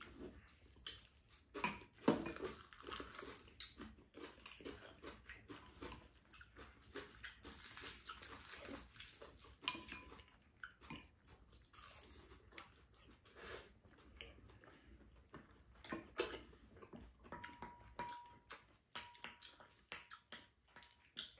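Two people eating at a table: quiet chewing and crunching, with scattered light clicks of spoons and chopsticks against bowls.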